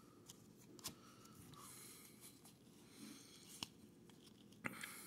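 Near silence, with a few faint clicks and taps of baseball trading cards being handled and slid against each other as they are sorted.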